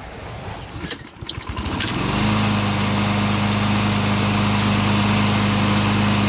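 Toro push mower's small engine pull-started: a short rattle of cranking about a second in, then it catches and settles into a steady, even run.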